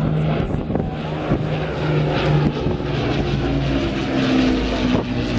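Aircraft engines running steadily as an aircraft flies over, a continuous hum whose pitch shifts.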